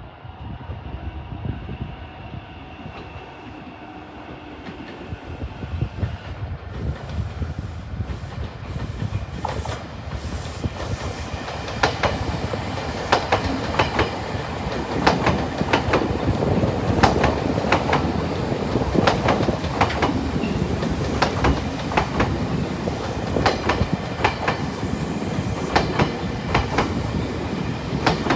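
A train approaching and passing, its wheels clicking over the rail joints. The clicks come in a regular clickety-clack rhythm that begins about a third of the way in, growing louder as the train comes close.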